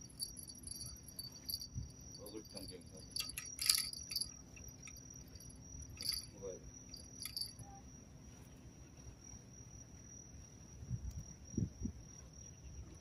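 Steady high-pitched insect trill, with a few light metallic clinks and jingles of fishing tackle being handled around four and six seconds in.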